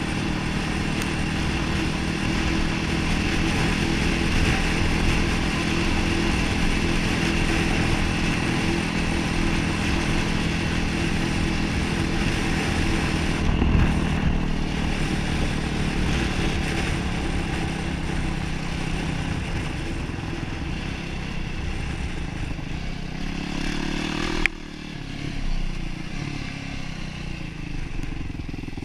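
Yamaha YFZ450R sport quad's single-cylinder four-stroke engine running at a steady pitch while cruising, with wind rush on the helmet microphone. About two-thirds of the way through the engine backs off. A sharp click follows, then quieter low-rev running with a few short throttle blips near the end.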